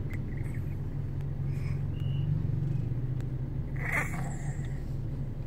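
Steady low road rumble inside a moving car's cabin, with a baby making a few short high coos, the loudest about four seconds in.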